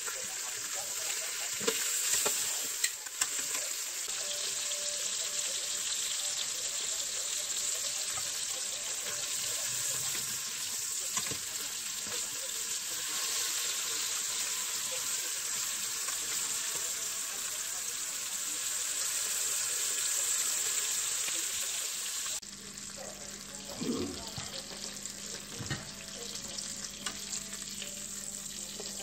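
Beef short ribs searing in hot oil in an electric cooker's pot, a steady sizzle, with a few sharp clicks as metal tongs turn the meat. About three-quarters of the way through, the sizzle drops quieter and a low steady hum joins it.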